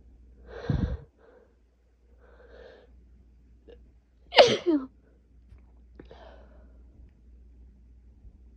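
A person with a head cold sneezing. A short, sharp burst comes about a second in, then a few breaths, then a louder full sneeze about halfway through whose voice falls in pitch, followed by a catching breath.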